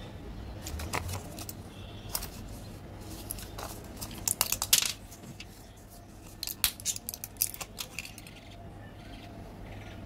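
A foil-and-plastic candy blister pack is handled and its pockets pressed, giving crinkling crackles and sharp clicks in a few clusters. The loudest cluster comes about four to five seconds in.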